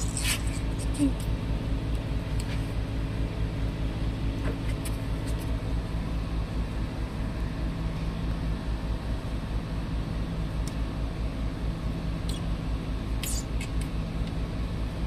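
An engine idling steadily, a low even hum, with a few light clicks and taps over it.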